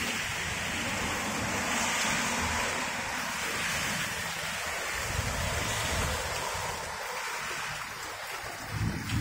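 Steady hiss of heavy rain falling, with low rumbles coming and going underneath.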